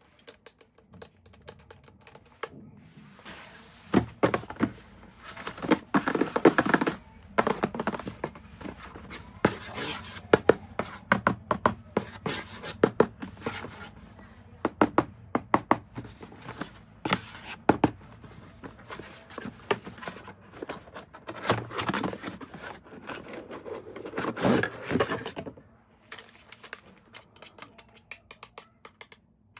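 Hands handling a toy and its packaging: many irregular clicks and knocks, with a few short stretches of rustling and crinkling.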